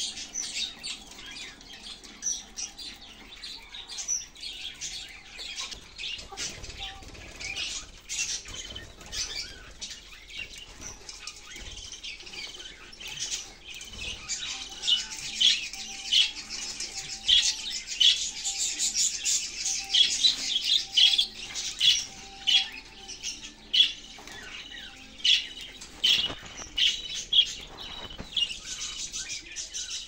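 A group of budgerigars chattering: a dense run of rapid, short, high chirps and warbles, busiest and loudest through the middle, with flutters of wings as the birds move about.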